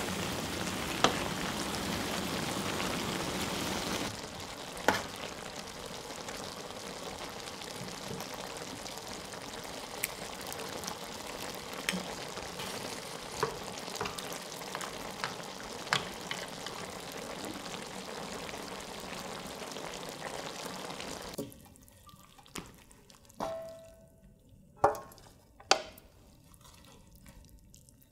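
Spicy stir-fried pork and kimchi stew sizzling on the heat, with the occasional sharp clack of a utensil. The sizzling cuts off suddenly a little over 20 seconds in, leaving a few clinks of tableware, one of them ringing briefly.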